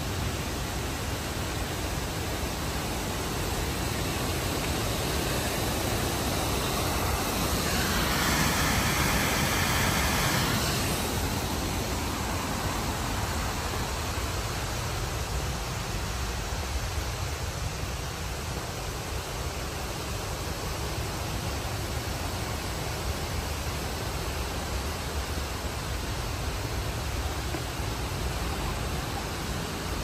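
Steady rushing water noise of a waterfall down in the gorge, swelling a little louder and brighter for a few seconds about eight seconds in.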